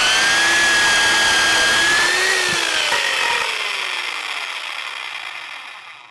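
Electric power tool motor running at full speed with a steady whine, then released and winding down to a stop, its pitch falling as it fades.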